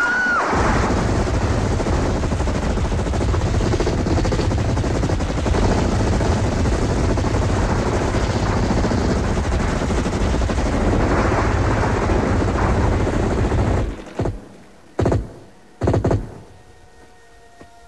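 Several automatic rifles firing without pause for about fourteen seconds, then three short last bursts a second or so apart before the shooting stops.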